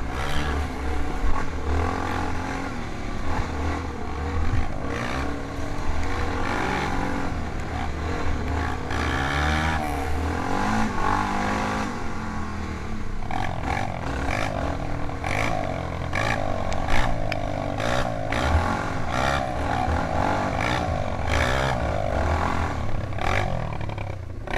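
Single-cylinder off-road engines revving up and down. The loudest is the camera's own machine, with a Honda 250 dirt bike running just ahead, and there are occasional short knocks from the ride.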